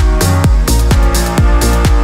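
Electronic dance music with a steady kick-drum beat, about three beats a second, under sustained synth chords.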